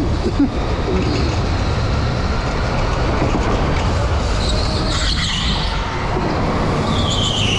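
Electric go-kart driving fast on a smooth concrete track, heard as a steady low rumble. Its tyres squeal through a corner about five seconds in, and again near the end.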